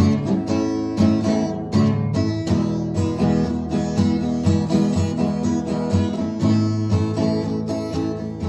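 Acoustic guitar being strummed, a steady run of chords struck one after another.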